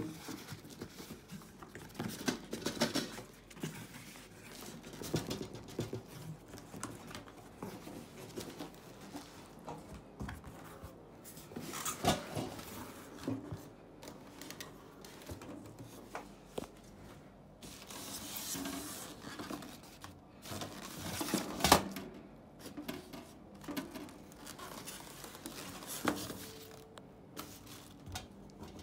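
Cardboard box and packing being handled and pulled apart while an electric oven is unboxed: irregular rustling, scraping and light knocks, with two louder knocks partway through.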